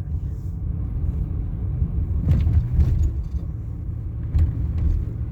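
Low, steady rumble of a car driving, heard from inside the cabin, with a few short knocks, about two seconds in and again near the end.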